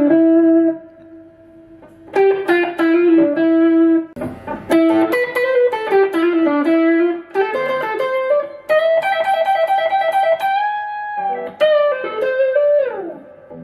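PRS SE Santana electric guitar through a Fender Deluxe tube amp playing a slow, melodic A minor lead lick: single sustained notes in short phrases, some wavering and bending in pitch. A note slides down near the end.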